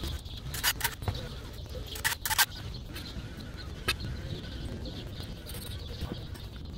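A few short, sharp clicks and taps of soldering tools and a plastic flux-tub lid being handled on a concrete floor, over a steady low background rumble.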